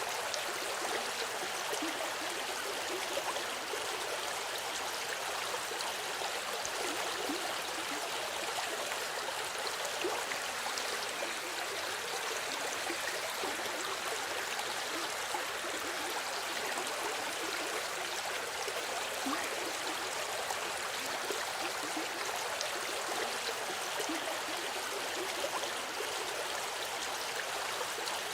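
River water flowing steadily over stones, a continuous rushing babble with small splashes and gurgles throughout.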